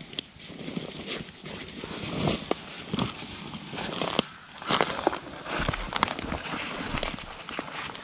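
Irregular crunching and crackling of footsteps through dry leaves and twigs, with sharp snaps scattered through.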